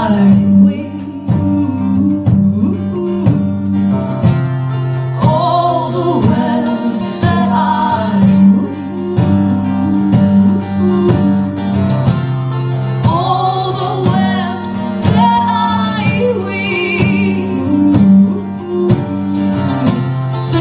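Live folk-rock song: women's voices singing, at times in two parts, over strummed guitar with sustained low notes beneath.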